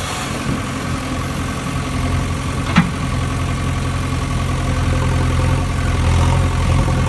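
Toy vehicle motor running with a steady low, engine-like hum. There is one sharp click about three seconds in.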